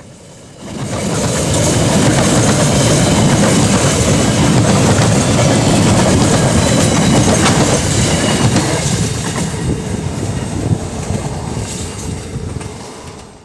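Freight train passing close by, a steady loud rumble with clattering wheels on the rails. It starts suddenly and fades away over the last few seconds.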